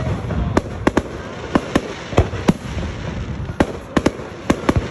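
Aerial fireworks display: a quick, irregular string of about fourteen sharp shell bursts, several in close pairs and triples, over a low rumble that carries between the bangs.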